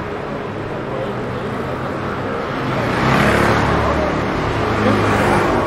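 Street traffic noise with motor vehicles running past. A motorcycle riding close gets louder from about three seconds in.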